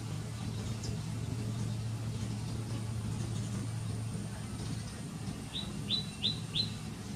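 A bird chirping four times in quick succession near the end, each chirp short and dropping in pitch, with fainter chirps about a second in, over a steady low hum.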